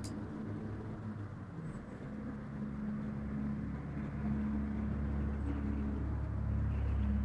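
Steady low rumble with a faint hum, getting somewhat louder about four seconds in.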